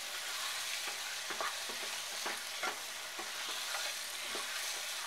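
Tomato-chilli chutney frying in oil in a non-stick kadai, a steady sizzle, with a spatula scraping and stirring through it in irregular strokes.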